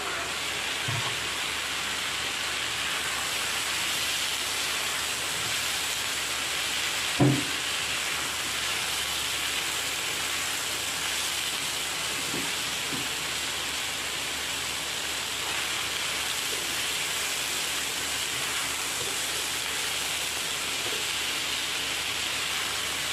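Chopped bell peppers, cabbage and chicken sizzling steadily as they stir-fry in a nonstick pan. A wooden spatula knocks sharply against the pan once about seven seconds in, with a couple of softer taps a few seconds later.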